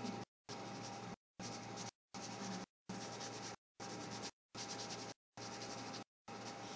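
Faint scratching and rubbing of a fine-tip Fudepen brush pen inking on glossy 280 g photo-quality paper. The sound drops out to silence for a moment a little more than once a second.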